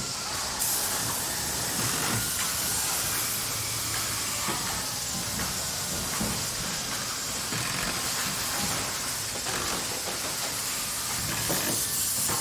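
Factory manufacturing ambience: machinery running with a steady hiss that swells about half a second in, over a low rumble, with scattered knocks and clanks.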